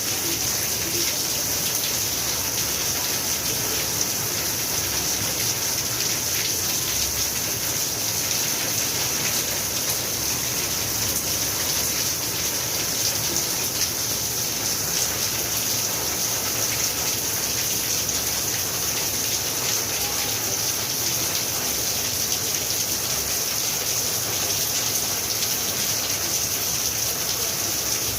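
Steady rain falling: an even hiss of drops with a fine, dense patter that neither builds nor fades.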